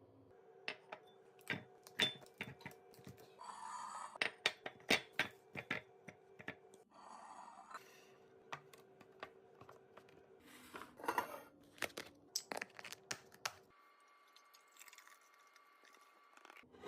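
Restocking sounds: many sharp clicks and taps of containers and packages being set down and handled, with a few short bursts of crinkling or tearing packaging, over a faint steady hum. The activity thins out after about 14 seconds.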